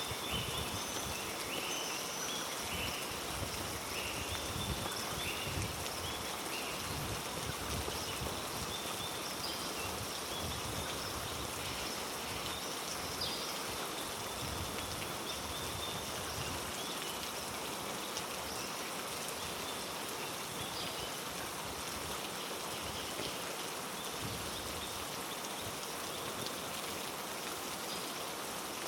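Heavy rain falling steadily through rainforest, a dense even rush of water. Short high-pitched calls come and go over it in the first half.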